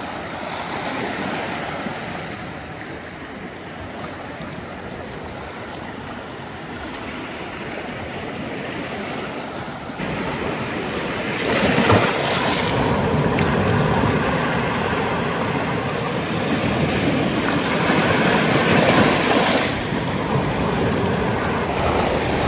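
Sea surf washing and breaking over rocks and the concrete blocks of a seawall, a steady rush of water that grows louder about halfway through.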